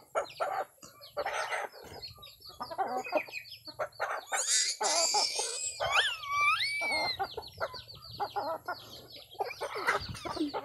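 Backyard chickens clucking, with short calls in quick succession from the flock and chicks feeding on scattered grain. About six seconds in, one longer call slides up and then down in pitch.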